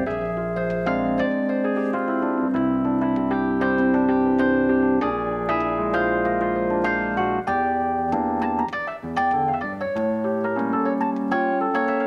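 Piano music played live: a steady stream of struck notes over held bass notes.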